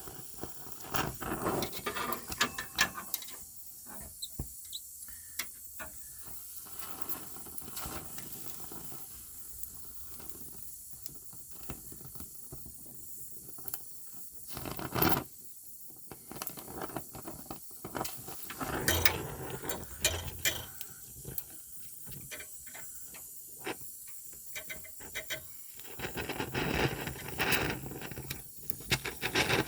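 Welding on a steel body mount, crackling and hissing in several short stints with pauses between them.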